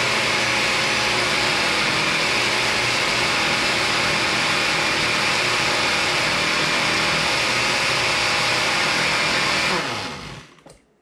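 Countertop blender motor running steadily, blending onions, garlic and oil into a thick dressing in a glass jar. About ten seconds in it is switched off and the motor winds down quickly to silence.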